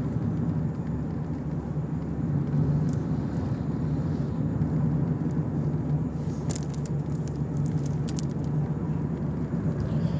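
Steady low rumble of a car's engine and road noise, with a few light clicks about six to eight seconds in.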